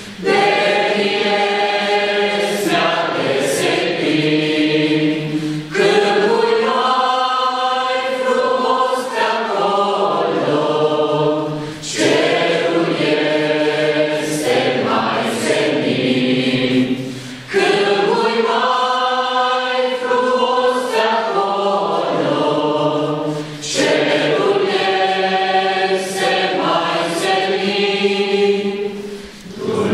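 A church congregation singing a Romanian hymn together in mixed voices, in sung phrases about six seconds long with a brief breath between each.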